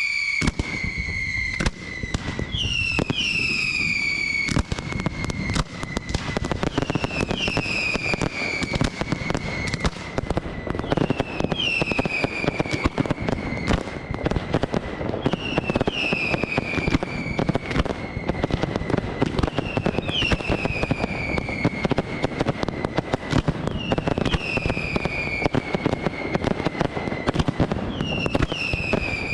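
Aerial fireworks display: continuous crackling and bangs, with a high whistle that falls in pitch repeating every few seconds.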